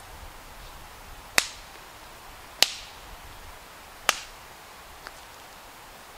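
A dry stick snapped by hand: three sharp cracks about a second and a half apart, then a faint click near the end.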